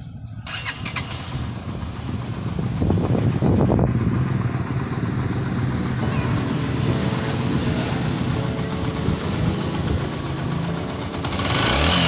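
Yamaha XTZ125 single-cylinder four-stroke motorcycle engine started on the electric starter about half a second in, catching quickly and then idling steadily after a carburetor repair for overflow and hard starting. It revs up briefly near the end.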